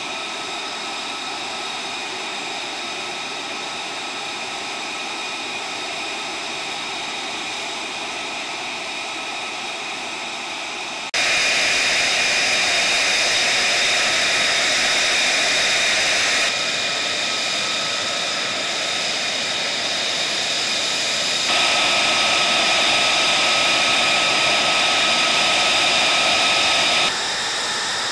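F-35A fighter's turbofan engine running on the ground at idle: a steady jet whine of several fixed tones over a hiss. It gets abruptly louder about eleven seconds in and shifts level a few more times.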